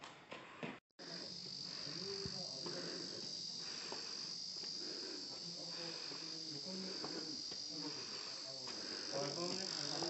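A steady, high-pitched insect chorus that starts just under a second in, after a brief dropout, with faint voices underneath.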